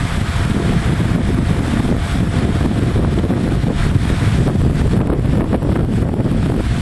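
Wind buffeting the microphone: a loud, steady low rumble that flutters rapidly.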